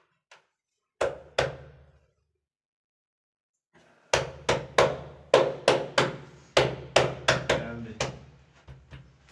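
A large ceramic wall tile being knocked into fresh tile adhesive to bed it: two sharp knocks about a second in, then after a pause a run of about a dozen quicker knocks, about three a second.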